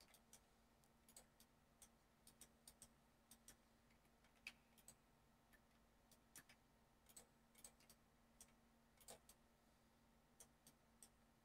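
Faint, irregular clicks of a computer mouse and keyboard, some closely spaced, others a second or more apart, over a faint steady low hum.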